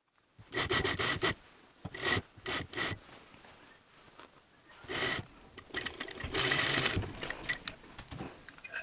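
Sewing machine stitching through wool coat fabric in several short bursts, stopping and starting as the seam is guided, with fabric rustling and shifting in between.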